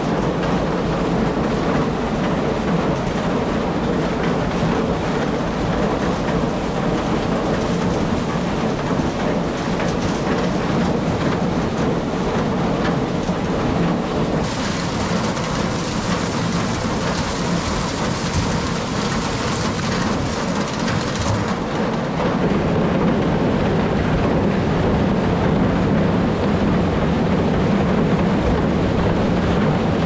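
Tractor engine running steadily beside a chain elevator carrying ear corn, the ears rattling and tumbling along it in a dense, continuous clatter. The texture of the rattle shifts slightly about 14 and 22 seconds in.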